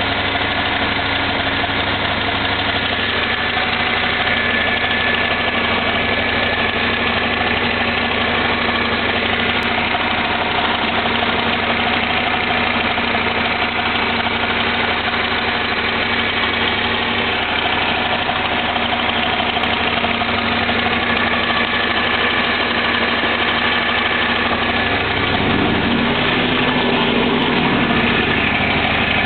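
2001 Camaro SS's LS1 5.7-litre V8 running steadily, with a noise that the owner suspects is lifter noise, which he says comes in from about 1200 rpm up. The engine note shifts slightly about 25 seconds in.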